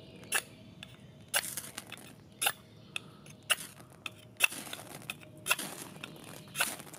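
The 90-degree spine of a 1075 high-carbon steel knife struck down a ferrocerium rod (fire steel), seven short scrapes about a second apart, each throwing sparks.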